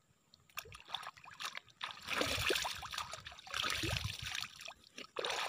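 Water splashing and trickling as a man scoops water over his face with his hands while standing waist-deep in it. It comes in a few spells, the loudest from about two seconds in and again around four seconds in.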